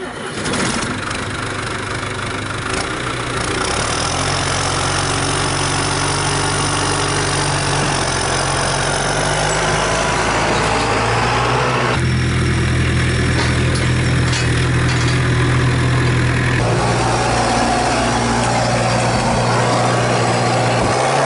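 Tractor diesel engine running steadily at low revs. The engine note changes abruptly about twelve seconds in and again a few seconds later.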